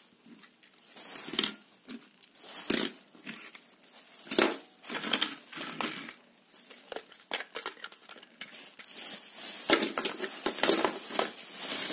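Thin plastic bag crinkling and rustling as toy cars are put into it: separate rustles at first, then denser, near-continuous rustling over the last few seconds.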